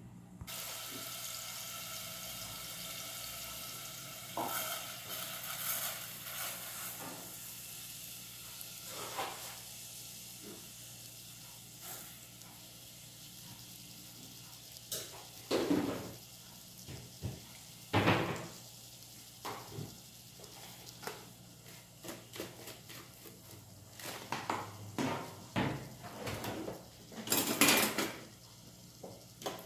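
Food sizzling in a pan on the stove, a steady hiss that slowly fades over the first half, followed by scattered clinks and knocks of pots, lids and utensils, the loudest few near the end.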